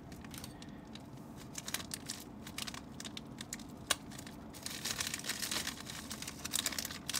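Shiny black plastic parts bag crinkling and rustling as it is handled and opened. The crackles are scattered at first and grow denser about halfway through, with one sharper click about four seconds in.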